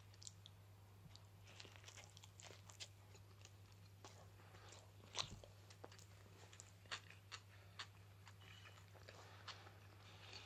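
Faint close-up chewing of toast topped with potato salad: soft, irregular crunches and mouth clicks, the sharpest crunch about five seconds in, over a low steady hum.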